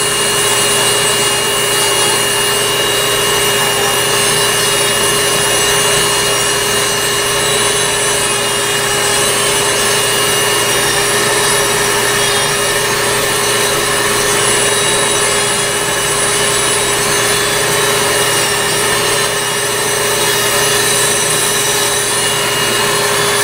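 Podiatry rotary nail drill running at a steady speed with a constant hum and whine, its sanding burr grinding down a toenail.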